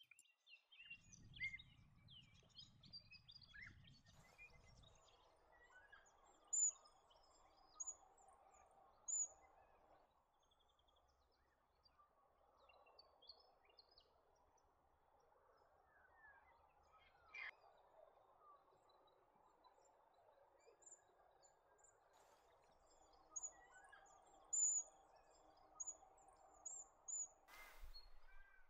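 Faint, short, high-pitched calls of a flock of plum-headed finches, scattered throughout over a quiet natural background, with a low rumble in the first few seconds.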